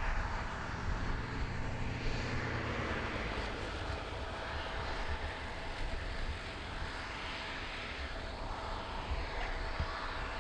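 Aircraft engines running steadily, with a held tone and a hiss that sweeps up and down in pitch as the aircraft moves.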